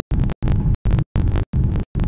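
Boeing 787-9 cabin noise during the climb after takeoff, a low engine rumble with hiss, chopped by the recording into short bursts with silent gaps about three times a second. The chopping is an audio fault of the camera, not part of the aircraft sound.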